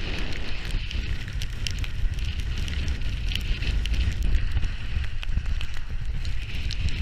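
Skis running over snow, a steady hiss with many small crackles, under heavy wind buffeting on a GoPro's microphone.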